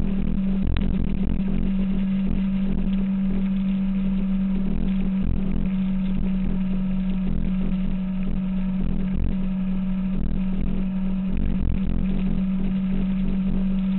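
2006 Kawasaki ZX-6R's inline-four engine running at a steady cruise, its pitch held level throughout.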